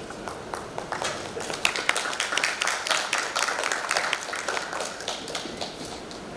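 Audience applauding. The claps build up about a second in and thin out near the end.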